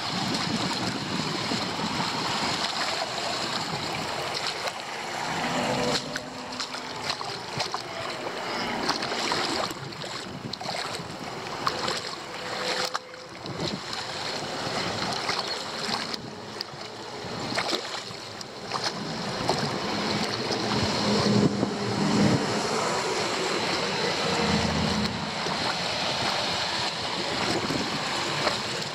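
Floodwater sloshing and splashing at a leaf-blocked roadside drain, with scattered knocks and scrapes and wind buffeting the microphone.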